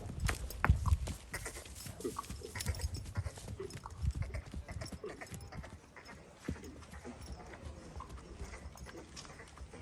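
Horse's hooves striking the ground in an irregular clip-clop, loudest in the first second, then fainter and more scattered.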